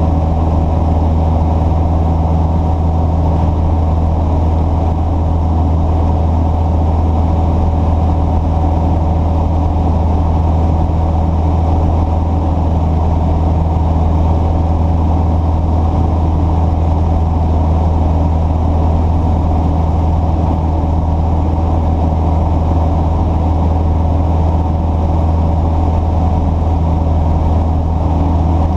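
An engine idling steadily with a deep, unchanging drone that does not rise or fall.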